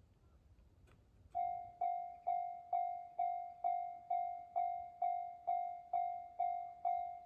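Japanese railway level-crossing warning bell starts ringing about a second and a half in, a struck ding repeating a little over twice a second, each one dying away before the next. It is the signal that a train is approaching the crossing.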